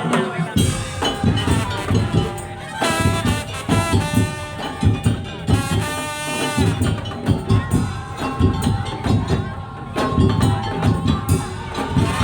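Madurese tong-tong (daul) ensemble playing: fast, dense drum and bamboo percussion strokes under a pitched melody line.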